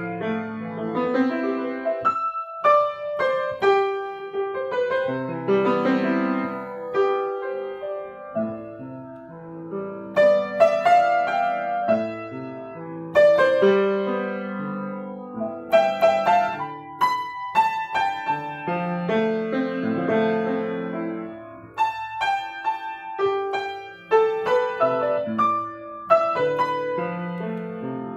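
Kawai GL-40 grand piano being played: a melody over sustained chords, in phrases separated by short pauses.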